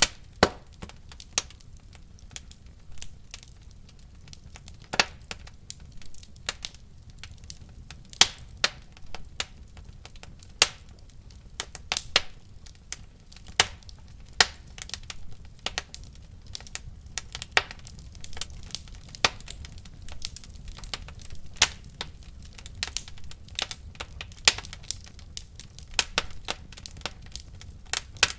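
Wood fire burning in a fireplace: irregular sharp crackles and pops, several a second, over a low steady rumble of the flames.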